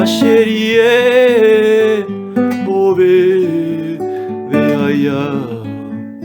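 Music: acoustic guitar strumming chords, with a long held melody line wavering in vibrato over it in three phrases.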